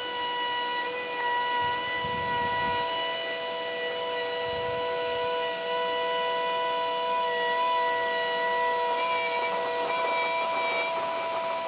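Trend cordless palm router running at full speed with a steady high whine as its cutter routes into wood, with low rumbles now and then as the bit bites. A dust extractor hose on the router base draws off the chips.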